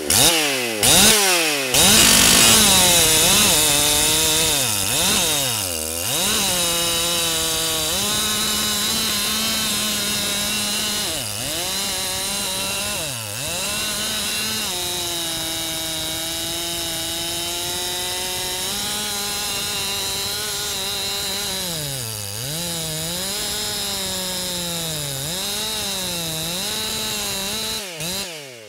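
Makita 7900 two-stroke chainsaw revving up, then cutting at full throttle through a large log. The engine note sags and recovers several times as the chain loads in the wood, and drops away near the end as the cut goes through.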